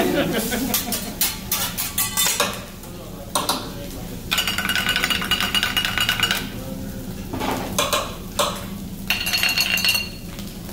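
Metal spatula and fork clicking and scraping rapidly on a steel teppanyaki griddle as fried rice is chopped and turned. Later come two stretches of dense metallic rattling with a ringing tone.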